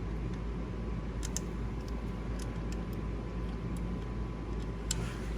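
Steady low mechanical hum in the background, with a few faint clicks of hand tools on the alternator hardware.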